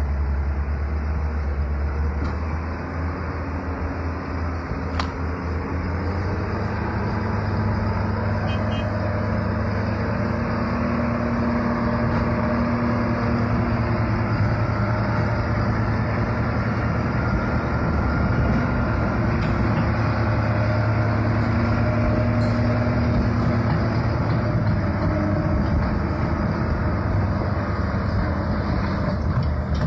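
Hyundai dump truck's diesel engine working under load as the truck pulls up onto the road. The revs rise about six seconds in and then hold steady.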